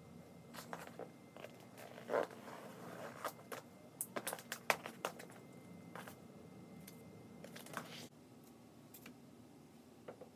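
Handling and cutting strips of corrugated plastic sheet: scattered clicks, scrapes and light taps, busiest around four to five seconds in, then quieter after about eight seconds.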